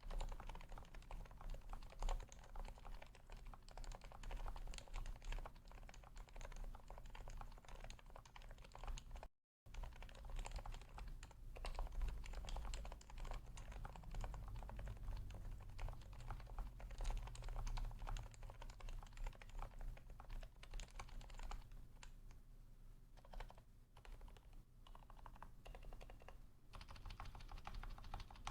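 Continuous fast typing on a Leopold FC980C, a Topre keyboard, modded with lubed Topre sliders, silencing rings, lubed stabilizers and a dampened case. The keystrokes run as a dense stream of clicks that cuts out for a moment about nine seconds in and thins out later on.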